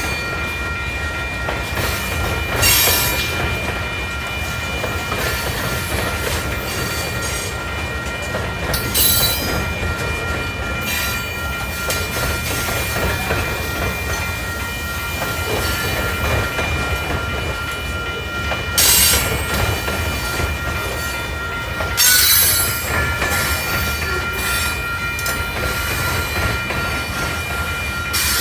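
Freight train of covered hopper cars rolling past, with a steady rumble of wheels on the rails. High-pitched wheel squeal flares up briefly several times.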